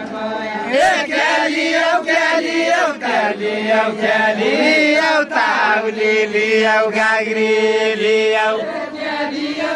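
Deuda folk singing: a chanted vocal melody of long held notes joined by sliding pitch bends, as sung in a Far-Western Nepali deuda song duel.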